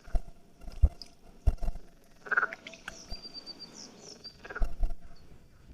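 Frogs croaking in riverside reeds. Calls recur about every two seconds, among a few low knocks.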